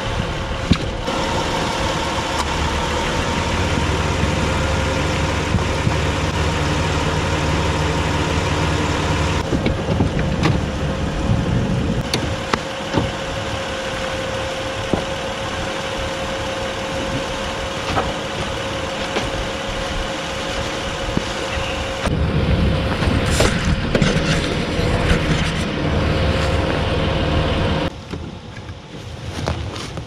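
Steady low rumble with a faint steady hum, overlaid with scattered knocks, clunks and rustles of gear being handled in and around a minivan as camping gear and firewood are unloaded. The background changes abruptly a few times.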